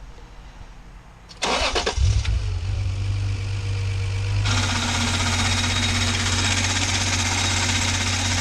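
Acura NSX V6 engine being started: the starter cranks briefly, then the engine catches and settles into a steady idle. About two seconds later a steady, higher-pitched rushing noise joins the idle. The belt is suspected of slipping and the idler pulley is the likely noisy part.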